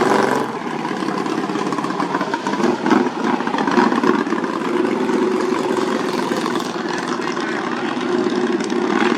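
Racing lawn mower engines running steadily, with a few brief louder swells about three to four seconds in.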